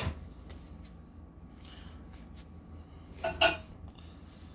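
Pokémon trading cards being handled and slid one behind another in the hands: soft scrapes and faint ticks over a low steady hum, with one brief louder sound about three seconds in.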